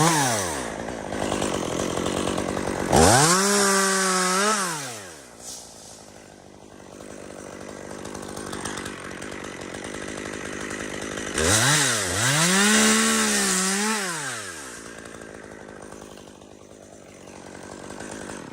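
Two-stroke chainsaw revved to full throttle in short bursts, each lasting one to two seconds, dropping back to a lower run between them: once at the start, again about three seconds in, and twice in a row near the middle.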